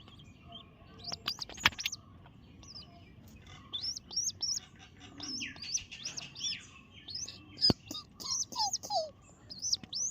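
Baby pigeon (squab) cheeping in quick runs of short, high, thin chirps, the begging calls of a chick wanting to be fed. A few sharp clicks stand out among them.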